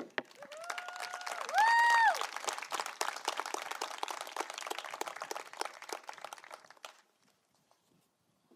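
A small crowd applauding with scattered, distinct claps. Two whistled notes rise over it in the first two seconds, the second one louder and briefly the loudest sound. The clapping dies away about seven seconds in.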